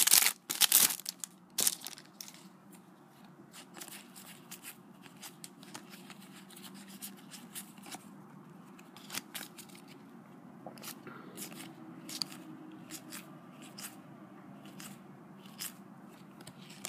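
Foil Match Attax card packet crinkling loudly as it is torn open in the first second, then quieter scattered crackles and clicks as the wrapper and cards are handled.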